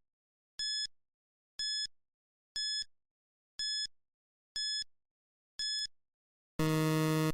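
Electronic countdown timer: short high beeps once a second, six in all, then a longer, lower buzz about six and a half seconds in, the time-up signal.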